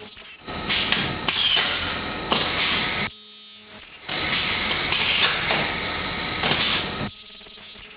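Automatic turntable ultrasonic plastic welding machine cycling: stretches of loud mechanical noise with sharp knocks, broken by short quieter pauses about three seconds in and again near the end.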